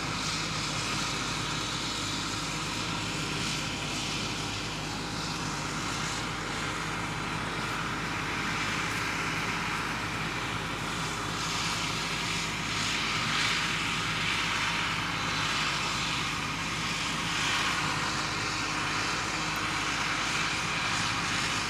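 A vehicle's engine running steadily, a low even hum with a steady hiss over it that swells a little in the second half.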